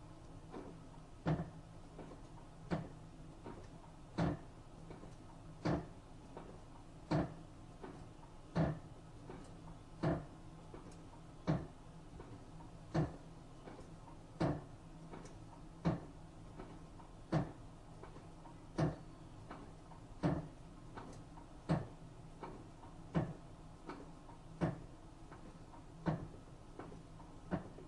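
Panasonic NA-FA80H3 washing machine near the end of its spin, giving a knock about every second and a half over a steady hum. It is a strange noise that the owner questions, as the machine is under a year old.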